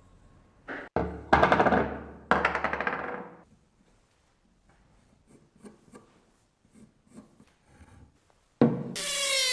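Wood being worked with a tool: about two seconds of rapid, closely spaced rasping strokes after a knock, then scattered light taps. Near the end a loud high whine with a wavering pitch starts.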